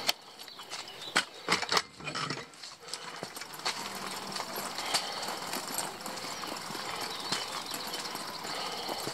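Bicycle rolling over a paved lane, its metal front basket rattling. There are a few loud knocks in the first two seconds, then a steady clatter of small ticks.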